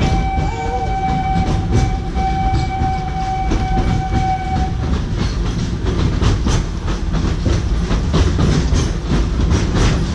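The Wildlife Express Train's steam locomotive blows its whistle in one long, steady note, with a short break about a second and a half in, and stops about five seconds in. Under the whistle the train runs with a low rumble, and after the whistle stops the wheels clack rhythmically over the rail joints.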